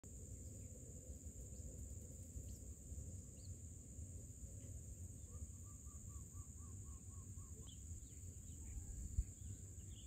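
Faint outdoor ambience: a steady high insect buzz over a low rumble, with scattered faint bird chirps and, midway, a run of about ten quick repeated notes at roughly four a second.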